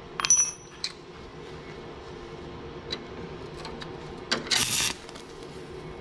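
Metallic clinks as the welding rod and locking pliers touch the steel lawn mower handle. A little past four seconds in, a short crackling hiss as the stick-welding arc strikes on the thin handle tube. A faint steady hum runs underneath.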